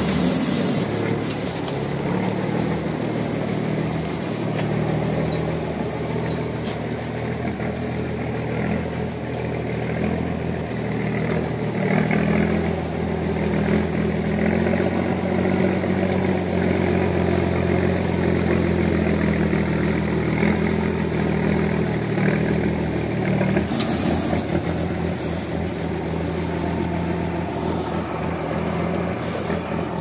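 Engine of an M35A2-type 6x6 ex-army truck running steadily as it pulls a cane trailer across rough field ground, getting louder about twelve seconds in and easing back after about twenty-three seconds. Short bursts of hiss come near the start and again about twenty-four seconds in.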